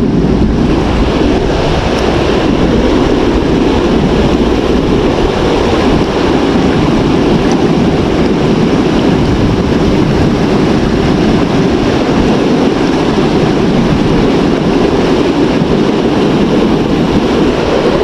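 Water rushing over and below a river dam: a loud, steady rush of falling and churning water.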